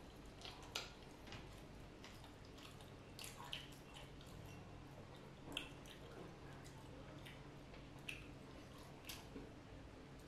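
Faint, scattered wet smacks and squishes of eating by hand: mouths chewing soft rice cakes and duck curry, and fingers in the sauce, over a quiet background.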